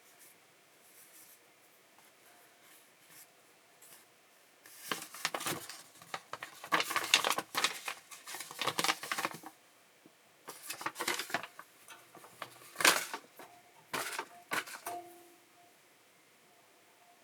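Paper or card being handled: crisp rustling and clicking in two bursts of a few seconds each.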